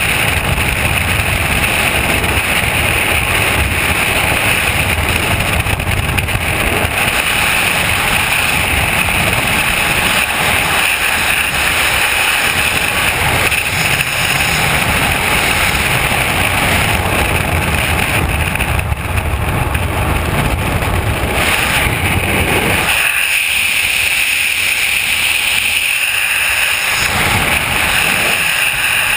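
Loud, steady rush of freefall wind over a skydiver's helmet-mounted camera microphone, easing in its lower part for a few seconds about two-thirds of the way through.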